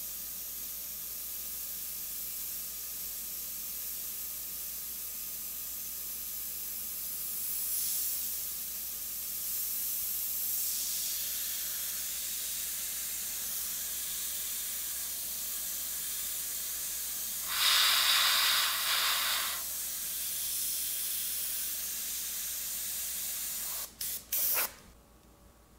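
Airbrush hissing steadily as compressed air and paint spray through it, with a louder burst of air about two-thirds of the way through. The air cuts out twice briefly near the end, then stops.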